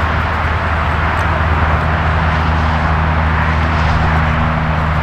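Steady running of a vehicle engine: a constant low hum with a haze of noise over it, no change in pitch or level.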